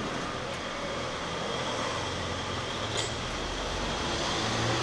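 Street traffic going by: a steady road noise with a low engine rumble from a heavy vehicle that swells near the end. A single sharp click sounds about three seconds in.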